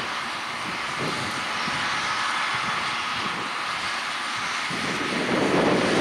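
John Deere 6215R tractor's six-cylinder diesel engine running steadily under load while pulling a six-furrow plough. It gets louder about five seconds in as the tractor draws closer.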